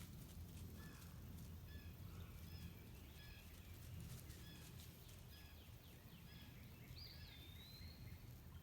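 Faint calls of a small bird: a series of short high chirps, about two a second, then a sliding whistle about seven seconds in, over a low steady background rumble.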